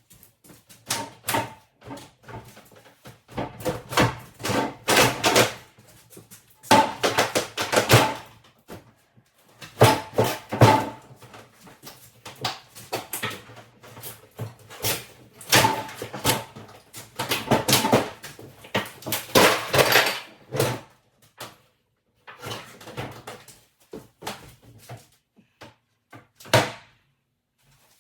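Kitchen base cabinet being wrenched out by hand: bouts of banging, cracking and creaking wood as it is pulled loose, with short pauses between the efforts.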